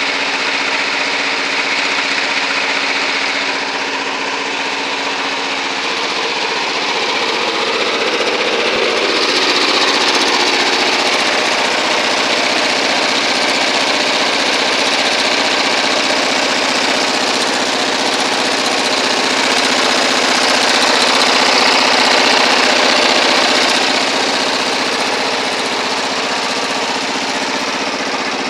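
A Hayter 19/40 ride-on garden tractor's 19 hp Briggs & Stratton Intek V-twin engine running steadily.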